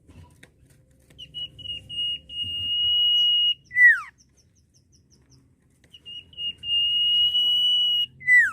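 Common iora (sirtu, cipoh) whistling its typical phrase twice: a long, steady, high whistle of about two seconds, then a short note that drops steeply in pitch. Between the two phrases comes a quick run of faint high ticks.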